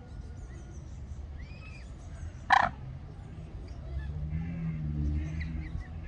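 A coot gives one short, sharp call about two and a half seconds in. Faint songbird chirps and a steady low rumble lie underneath, with a low hum swelling near the end.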